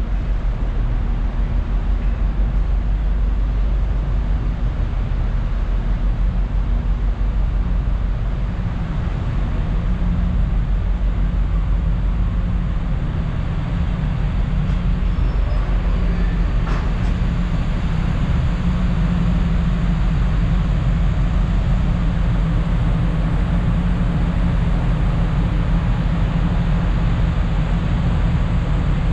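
Steady low rumble with rushing noise, the sound of a ferry under way, its engines and the air and water around the hull running evenly.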